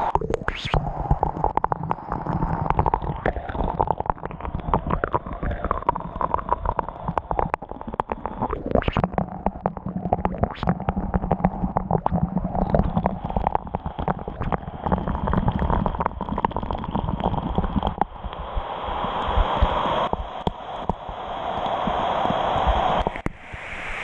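Water splashing and gurgling close up inside a BAC cooling tower, heard through a wet, waterproofed camera, with many small knocks and taps throughout. The water sound grows louder for a few seconds near the end.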